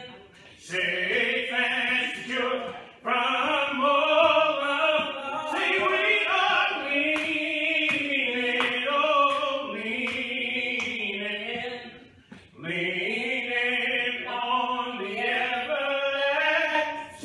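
Slow, drawn-out hymn singing with long held notes, breaking off briefly about three seconds in and again near twelve seconds.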